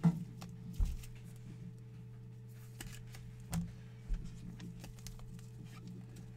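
Trading card pack opened by hand: the plastic wrapper crinkling and the cards being handled, with scattered light clicks and a few soft bumps, over a steady low hum.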